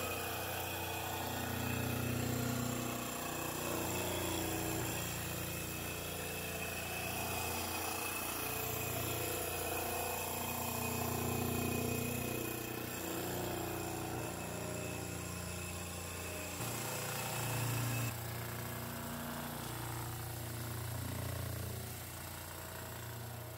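Motor-driven cup grinding wheel grinding a glass disc into a convex mirror-making tool under a jet of water coolant: a steady machine hum with a grinding hiss, its tone shifting slightly a few times where the footage is cut.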